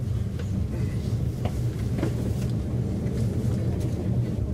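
A VR InterCity passenger train heard from inside the carriage as it runs along the track: a steady low rumble with a few sharp clicks from the wheels on the track.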